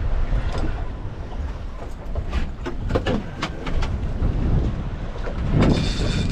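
Wind buffeting the microphone on a small fishing boat, a steady low rumble, with a run of sharp clicks and knocks about two to three and a half seconds in.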